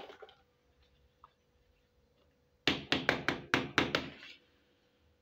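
Small hard plastic toy kitchen pieces being handled and set down on a table: a soft clatter at the start, then just past halfway a quick run of about eight sharp plastic clacks over a second and a half.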